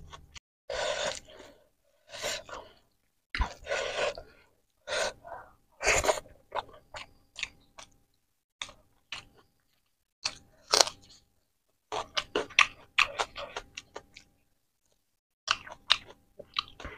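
Close-miked chewing of rice, egg curry and raw leafy greens: clusters of short wet mouth clicks and noises, broken by silent gaps between mouthfuls.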